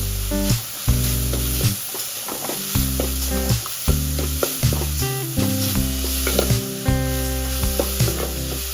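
Fish cutlets sizzling as they fry in hot oil, with scattered clicks of a utensil. Background music with held bass notes plays underneath.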